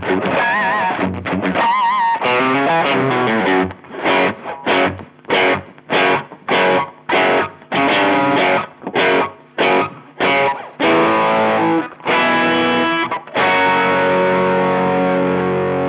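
Distorted electric guitar through a Chevtone Messiah Drive British-style overdrive pedal. Held lead notes with vibrato open the passage. About a dozen short, choppy chord stabs follow, and it ends on a long ringing chord.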